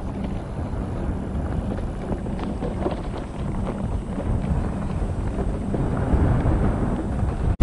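Wind buffeting the microphone: a steady low rumble that grows a little louder about six seconds in.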